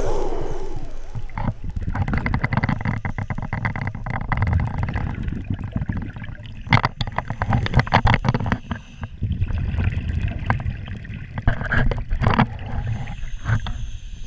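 Scuba divers' exhaled bubbles rushing out of their regulators, heard underwater through the camera housing: a dense bubbling crackle with a low rumble, coming in long bursts with short pauses between breaths.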